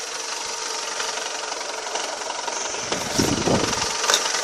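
Renault Mégane II engine idling with a knock from the clutch and flywheel end, which comes and goes with the clutch pedal; the owner suspects a loosely bolted clutch pressure plate or something rubbing after a clutch replacement. A short low rumble about three seconds in and a couple of brief clicks near the end.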